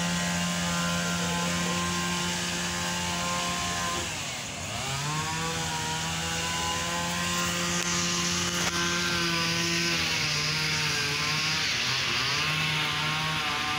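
A small engine running at a high, steady pitch. It winds up at the start, drops and picks up again about four and a half seconds in, eases off around ten seconds, and steps up and down a few times near the end.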